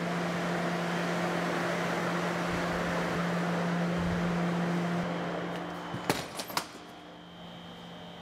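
Industrial oven's circulation fan running with a steady low hum and airy hiss. About six seconds in the oven door clunks shut with a few sharp knocks, and the fan hum carries on more quietly.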